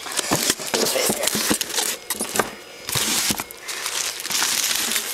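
Rustling and crinkling of things being handled, with scattered clicks and knocks and a short lull midway.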